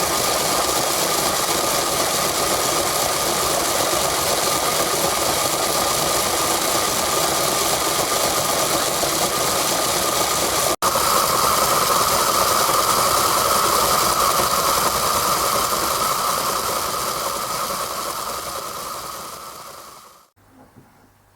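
Hornby Princess Elizabeth O gauge model locomotive's electric motor and gears running steadily with a rattling whir, cut off for an instant about halfway and dying away near the end.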